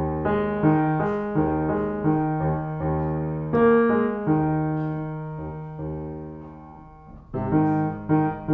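Piano playing slow, sustained chords over a low moving bass line, new chords struck about once a second and left to ring; near the end one chord fades out almost completely before the playing resumes.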